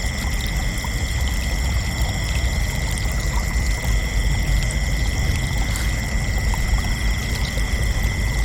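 Crickets chirping in a dense, continuous chorus, a steady high trill that never breaks, over a constant low rushing noise like flowing water.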